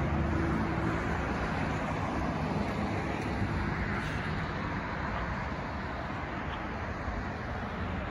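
Road traffic: cars driving along the street, a steady rush of tyre and engine noise that eases slightly after the first second or two.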